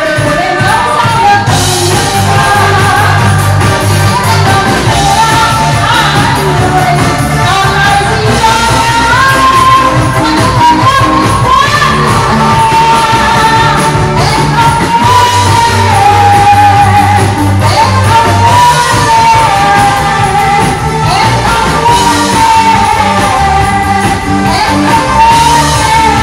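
Live band playing upbeat pop dance music, with a lead singer carrying the melody over a steady beat.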